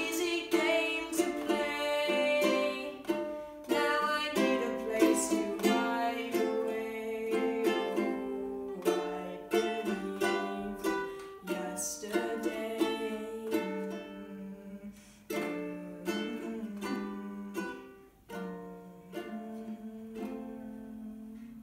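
Ukulele strummed in chords, with a young girl singing along. The playing grows quieter and ends on a chord left ringing near the end.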